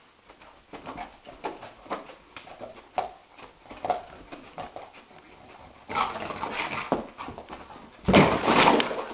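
A dog running in its sleep: its paws paddle and thump on the carpet in a quick uneven rhythm, then it scrambles up. About a second before the end it crashes heavily into the wall.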